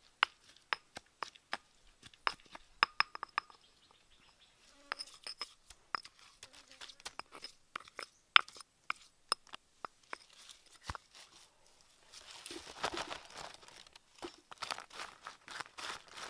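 Wooden pestle pounding chili in a mortar: sharp, irregular knocks a few times a second. About twelve seconds in, it gives way to a denser, crackly rustle of a hand mixing chili paste into roasted insects on a banana leaf.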